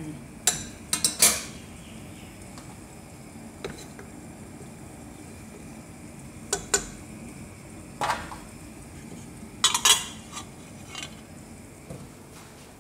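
Metal cooking pots and lids clinking and clattering on a gas stove, with a wooden spoon stirring soup in a metal pot. About half a dozen sharp clinks are scattered through, the loudest clusters about a second in and about ten seconds in.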